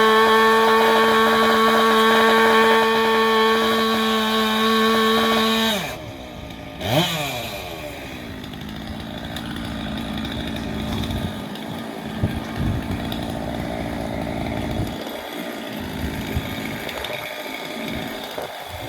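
Two-stroke chainsaw running at full throttle with a steady high whine. About six seconds in, the throttle is released and the pitch falls away; there is a short rev about a second later, then the saw drops back to a quieter, even sound.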